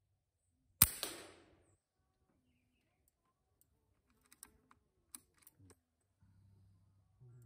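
A single shot from a Hatsan Flash .22 (5.5 mm) PCP air rifle about a second in: a sharp crack that dies away within half a second. A few seconds later come several quick metallic clicks as the bolt is worked to chamber the next pellet from the magazine.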